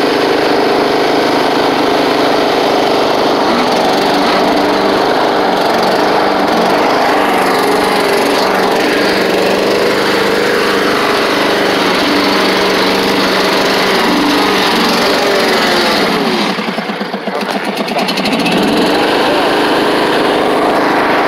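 Riding lawn mower's small engine running loudly and steadily. About three-quarters of the way through, its speed briefly sags and then picks back up.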